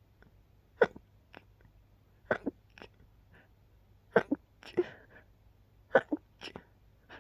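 A run of stifled sneezes, held back to keep quiet: short, sharp bursts about once a second, several coming in quick pairs.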